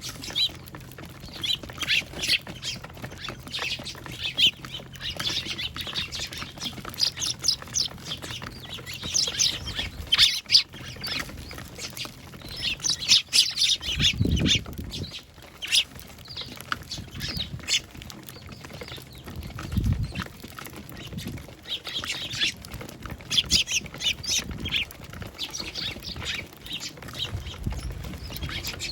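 A flock of Eurasian tree sparrows chirping and squabbling, with many short, high calls overlapping throughout. Two brief low rumbles come about halfway through and again a few seconds later.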